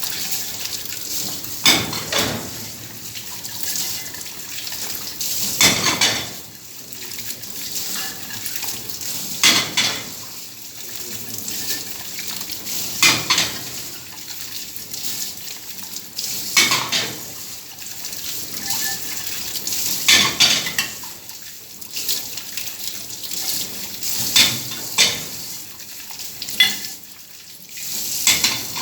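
Dishes and cutlery being washed by hand in a sink under a running tap, with a loud clatter of crockery about every three to four seconds over the steady hiss of water.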